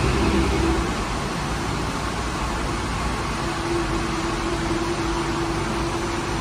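Steady hum and rush of bakery machinery, with a low rumble underneath and a faint held tone that fades early and returns about three and a half seconds in.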